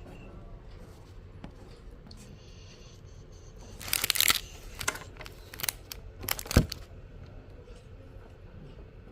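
A few seconds of crinkling and rustling handling noise, with a sharp knock near the end of it.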